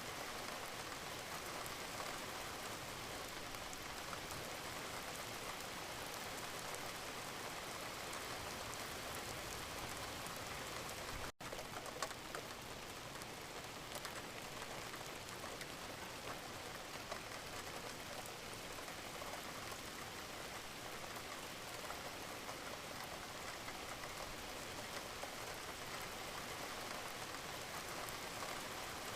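Steady rain falling, an even hiss with a fine patter of drops. About eleven seconds in the sound drops out for a split second, then carries on unchanged.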